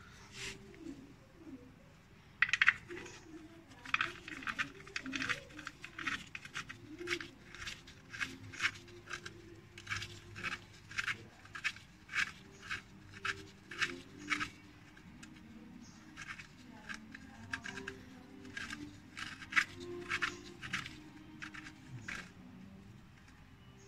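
Gloved hand turning a car's spin-on oil filter by hand: a run of short scraping rubs of glove on the filter can, about two a second, thinning out after the middle.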